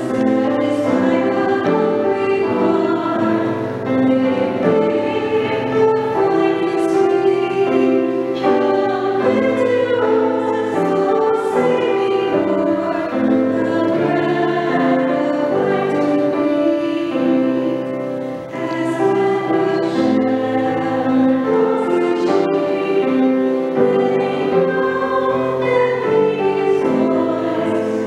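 A woman singing a hymn with piano accompaniment.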